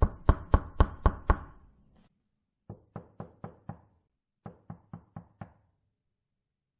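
Knocking on a door in three rounds: about six loud, quick knocks, then after a pause two softer rounds of five knocks each, about four knocks a second.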